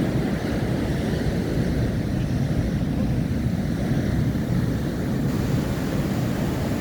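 Big ocean waves breaking and surging on a beach, heard as a steady low rumble.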